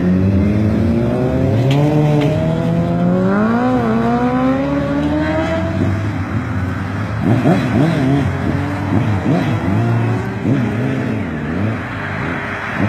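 A group of sport motorcycles revving and accelerating away. One engine's note climbs steadily for the first several seconds, then several engine notes rise and fall over each other as the other bikes rev and pull away.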